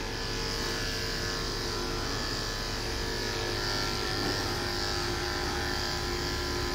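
Electric grooming clippers running with a steady hum as they shave a dog's heavily matted coat off close to the skin.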